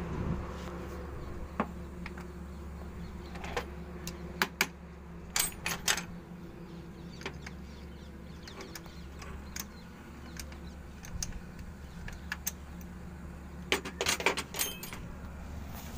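Scattered metallic clicks and clinks of a spanner and brass battery terminal clamps being handled and fitted onto a truck battery's posts, bunched in short flurries about four to six seconds in and again near the end, over a steady low hum.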